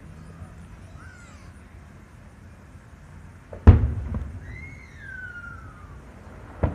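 Distant aerial firework shells bursting: one loud boom a little past halfway that rumbles away, and a fainter bang near the end. In between, a thin whistle-like tone slides downward in pitch for about a second.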